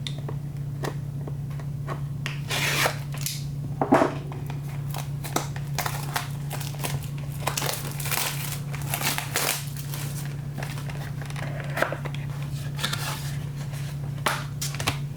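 Trading-card box packaging being torn open and crinkled by hand: scattered bursts of tearing and rustling with small clicks, over a steady low hum.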